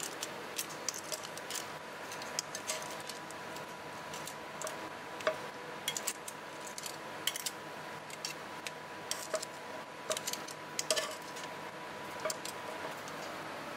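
Metal kitchen tongs clicking and tapping against a nonstick frying pan and plate, irregular sharp clicks over a steady hiss.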